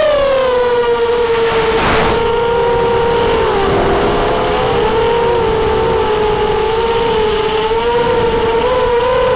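Brushless motors and propellers of a ZMR250 FPV racing quadcopter, heard from its onboard camera: a high whine that drops in pitch at the start as the throttle eases, then holds with small rises and dips, at times splitting into two close tones as the motors run at slightly different speeds. A brief rush of noise comes about two seconds in.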